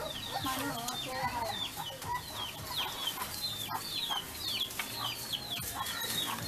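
Chicks peeping, a steady string of short high notes that fall in pitch, a few each second.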